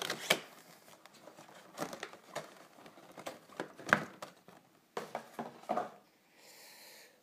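Packaging crinkling and rustling by hand as a boxed figurine is unwrapped, in irregular bursts with a few sharper crackles, the sharpest about four seconds in, then quieter near the end.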